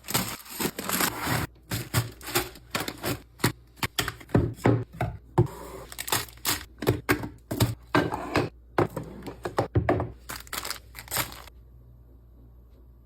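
Packaged food and plastic containers being handled and set into a fridge: a quick run of clicks, taps and crinkling plastic that stops suddenly near the end, leaving a faint hum.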